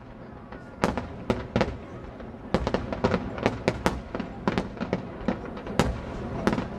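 Aerial firework shells bursting in a display: sharp bangs, a few at first and then many in quick, irregular succession from about two and a half seconds in.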